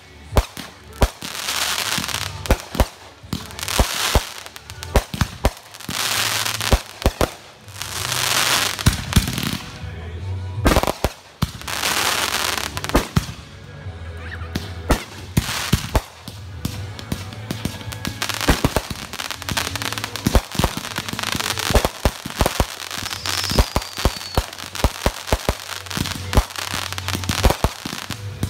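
Consumer aerial fireworks going off in quick succession: many sharp bangs and crackling reports from bursting shells, with repeated hissing rushes.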